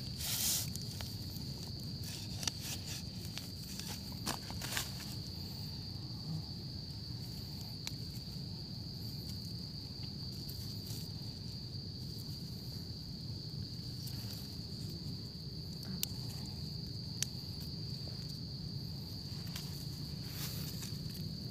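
A steady, high-pitched insect drone from the surrounding forest, with a few short rustles and snaps of dry leaf litter and twigs as hands pluck termite mushrooms from the soil.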